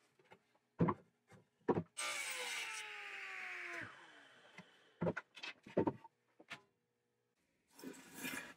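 Wooden boards knocking on a table saw's steel top as they are handled, and the table saw's blade and motor spinning down for about two seconds with a falling whine. Near the end, a short rubbing of a wooden board sliding on a bench.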